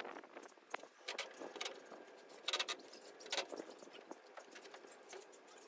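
Scattered light metallic clinks and knocks from tools and a steel tool chest being handled, with short rattles about two and a half and three and a half seconds in.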